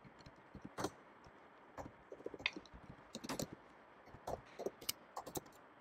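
Faint, irregular keystrokes on a computer keyboard, a short run of typing with single clicks spread out and a few quick clusters.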